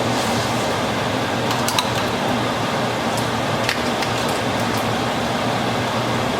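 Garlic and red pepper flakes sizzling in hot olive oil and butter in a pan: a steady hiss with a few small crackles, over a steady low hum.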